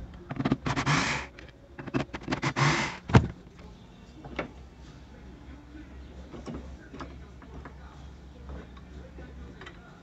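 Plastic clutch coupling of an LG direct-drive washer transmission rattling and scraping as it is worked off the splined shaft by hand, with a sharp snap about three seconds in. After that there are only faint handling clicks over a steady low hum.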